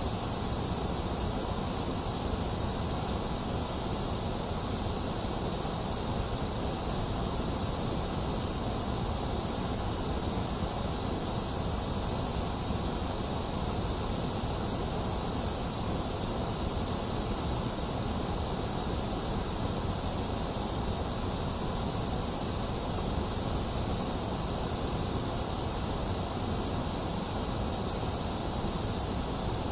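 Box fan running steadily with rain mixed in: an even, unbroken noise with a strong high hiss.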